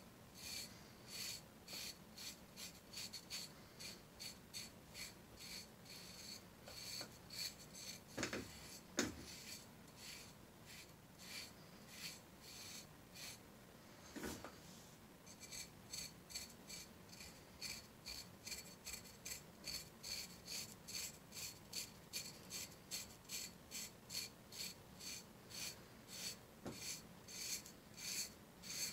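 Knife blade scraping dry psoriasis scales off the skin of a shin in quick, rhythmic strokes, about three a second, with a dry rasp on each stroke. The strokes weaken for a few seconds in the middle, where a few louder knocks sound.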